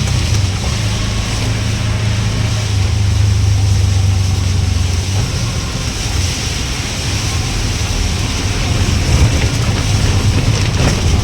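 Car driving in heavy rain: a steady low rumble of engine and road with a constant hiss of rain and tyre spray over it.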